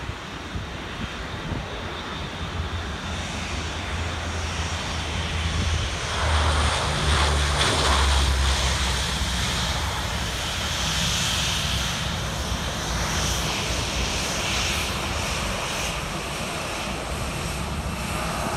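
Lockheed HC-130H's four Allison T56 turboprop engines droning with a high turbine whine. The sound grows louder about six seconds in as power comes up for the takeoff roll of a touch-and-go, then holds steady.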